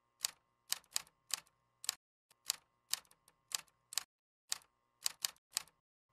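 Typewriter key strikes, one sharp clack for each letter as the title types out, coming unevenly at about two a second.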